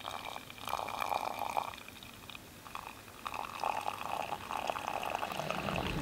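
Coffee poured from a pot into a pour-over dripper on a metal camp mug: a splashing trickle that starts just after the beginning, eases off for a moment about two seconds in, then picks up again.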